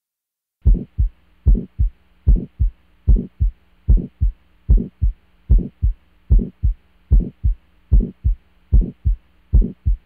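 Auscultation recording of a heart beating about once every 0.8 seconds, each beat a pair of thumps, with a faint harsh crescendo-decrescendo systolic murmur between them: the murmur of aortic stenosis. A faint steady hum runs under it, and it starts about half a second in.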